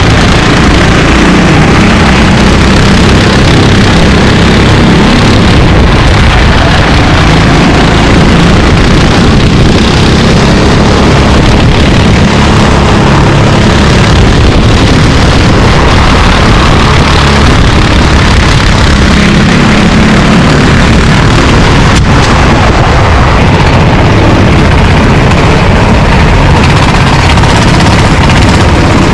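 Racing kart engines running at racing speed, the engine note rising and falling with the revs.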